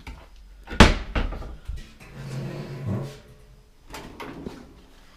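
A wooden kitchen cabinet door under the sink is shut with a sharp bang about a second in. Rattling and handling noise follow, then a few lighter clicks and knocks near the end.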